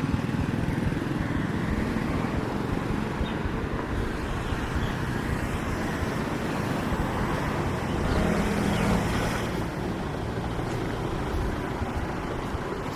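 Steady outdoor rumble of motor-vehicle engines going by, the engine hum swelling at the start and again about eight seconds in.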